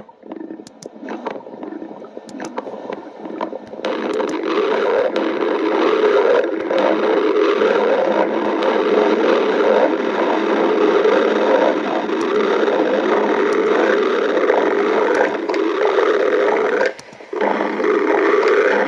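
Hungry human stomach growling: a long gurgling rumble, faint and crackling for the first four seconds, then loud and continuous, breaking off briefly near the end.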